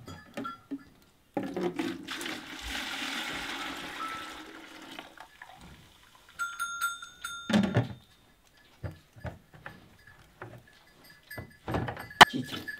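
Liquid poured from a plastic tub into a plastic bucket: a steady splashing stream lasting about four seconds, followed by a few knocks and clatters of the buckets.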